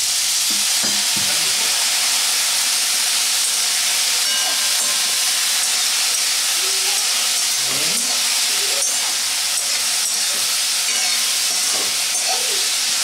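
Water poured into a hot kadai of fried, spiced potato cubes, sizzling and boiling off in a loud, steady hiss.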